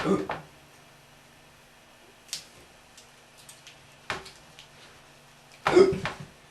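A boy hiccupping: a sharp hiccup right at the start, another about four seconds in and the loudest near the end, with a faint click in between.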